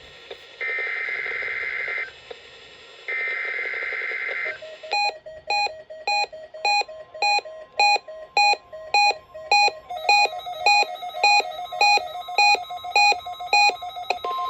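Two short buzzy bursts of the NOAA Weather Radio SAME digital header that opens a Required Weekly Test. From about five seconds in, a weather alert receiver starts an electronic beeping alarm at about three beeps a second, and a second beep pattern joins at about ten seconds. A steady tone begins just before the end.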